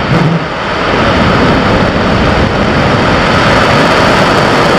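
Angara rocket engines igniting with a couple of deep booms right at the start, then a loud, steady rumbling roar of the rocket exhaust at liftoff.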